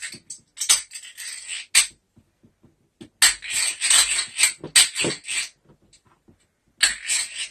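Old hand drill being turned in spurts to twist the strands of a speaker-cable conductor together. Several bursts of whirring, clicking gear noise with short pauses between them.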